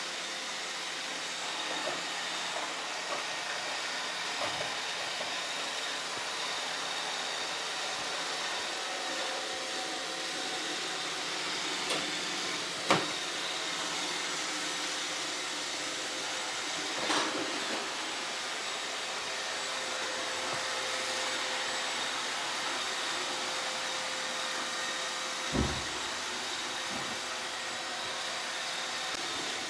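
Roomba 690 robot vacuum running steadily: an even whirring hiss with a faint high whine. A few brief knocks come about halfway through and again near the end.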